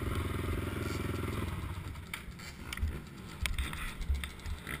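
Quad (ATV) engine idling, then shut off about a second and a half in; after that only a few light clicks and knocks.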